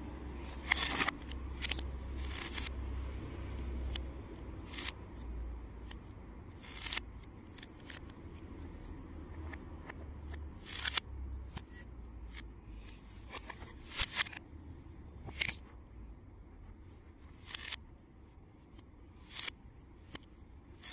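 Plastic Lego plates and bricks clicking as they are handled and pressed together, a sharp click every second or two at irregular intervals.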